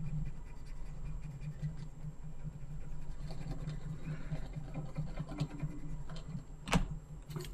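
Faint scratching of hand-drawn strokes being dragged over the drawing surface by a pointing device, over a low steady hum, with one sharp click near the end.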